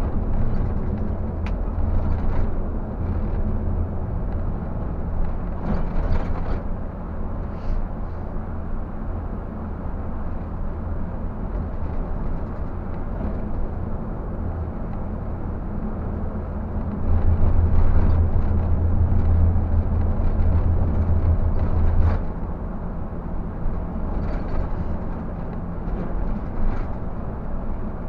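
Scania K124 360 coach's six-cylinder diesel engine droning steadily while cruising, with road and tyre noise and a few short rattles. The engine grows louder for several seconds past the middle, then drops back suddenly.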